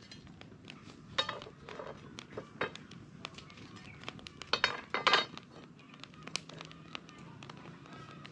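Metal bars clinking and clanking against each other and the concrete blocks as they are laid across a wood fire, with several sharp metallic strikes that ring briefly, the loudest a cluster about five seconds in. The wood fire crackles lightly underneath.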